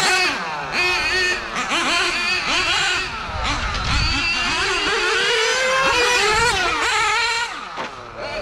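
Small two-stroke nitro glow engines of 1/8-scale RC GT cars revving hard at high pitch, several engines overlapping, each pitch rising and falling quickly as the throttle opens and closes.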